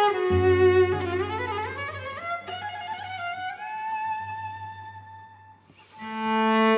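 Cello playing a slow classical melody that climbs in small steps and slides onto a long high note, which fades out near the end before a new bowed note begins, over a low sustained note from the classical guitar accompaniment.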